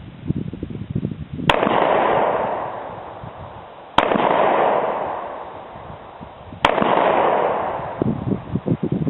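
Pistol shots at a range: three single rounds about two and a half seconds apart, each a sharp crack followed by a long fading wash of sound.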